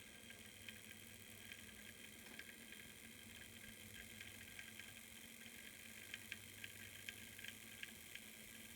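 Fleischmann BR 140 model locomotive being driven, giving a faint steady hum with irregular sharp clicks that come thicker near the end: the strange noise it makes when driving.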